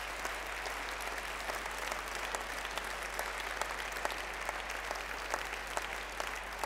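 Audience applauding steadily, a crowd of people clapping at once.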